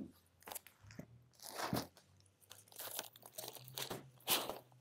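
Vinyl LPs being handled: a record in its paper sleeve put back into its cardboard jacket, then LP jackets flipped through in a store bin, making a run of short, irregular rustling and scraping sounds, the loudest near the end.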